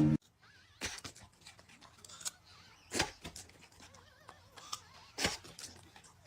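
A handful of short knocks and thumps in a quiet room, the loudest about three seconds in and another just after five seconds.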